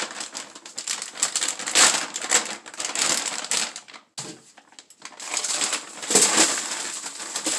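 Plastic freezer bag and aluminium foil crinkling and crackling as they are handled, in a run of irregular rustles with a short lull about four seconds in.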